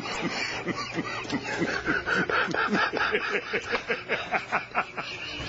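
Several people laughing, in quick, rhythmic pulses.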